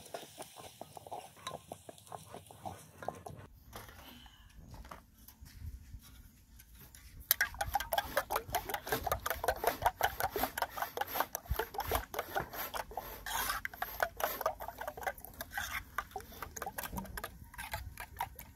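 A spoon beating eggs in a small aluminium bowl: rapid, repeated scraping and clicking against the metal, starting about seven seconds in. Before that, a wooden spoon stirs greens and tomatoes in an aluminium saucepan.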